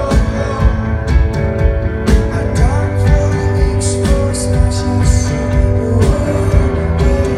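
Live rock band playing a song through a concert sound system, with a steady drum beat under sustained guitar and keyboard tones.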